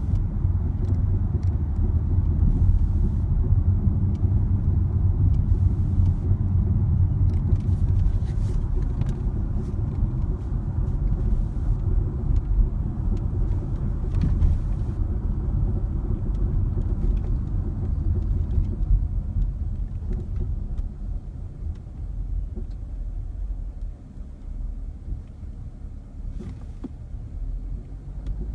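A car running with a steady low rumble that eases somewhat after about twenty seconds, with a few faint clicks; the owner reports a knocking noise from it.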